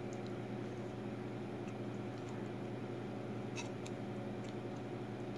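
Ground-meat sauce being spooned onto potato wedges in a pan: soft squishes and a few faint clicks of the spoon, the clearest about three and a half seconds in, over a steady low hum.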